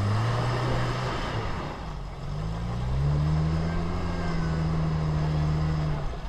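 Jeep Wrangler engine revving hard under load as it claws up a steep, loose dirt bank. The revs climb, ease off about two seconds in, rise again and hold high for a few seconds, then drop away just before the end.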